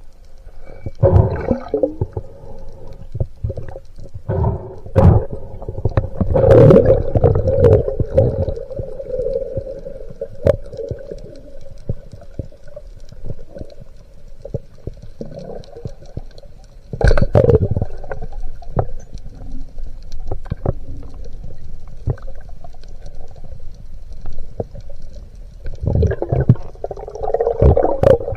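Muffled underwater sound heard through a waterproof camera housing: gurgling water movement with scattered sharp clicks and louder surges a few times, near the start, in the middle and near the end.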